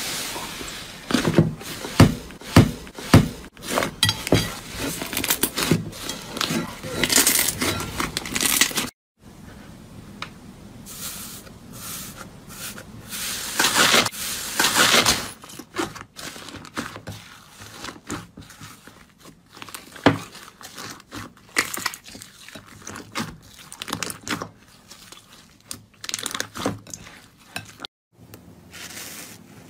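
Slime being squeezed, pressed and poked by hand: dense crackling clicks and sticky popping. It breaks off abruptly twice, about 9 and 28 seconds in, as one clip gives way to the next.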